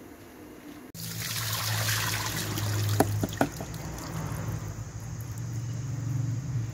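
Hot cooking water pouring from a pot through a plastic colander to drain boiled water spinach, strongest at first and then easing. Two sharp knocks come about two seconds into the pour, with a steady low hum underneath.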